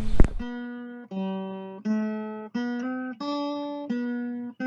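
Acoustic guitar music: a slow line of plucked notes, one about every 0.7 seconds, each ringing and fading before the next. A sharp click comes right at the start.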